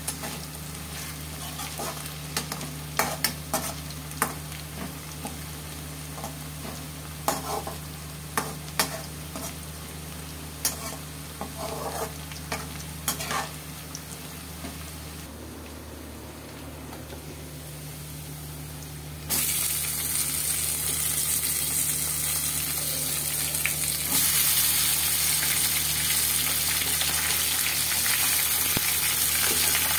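Metal spatula stirring and scraping sliced onions frying in oil in an aluminium kadai, with quick scrapes and knocks against the pan. About two-thirds of the way in a loud steady sizzle starts, and it gets louder again a few seconds later, over a steady low hum.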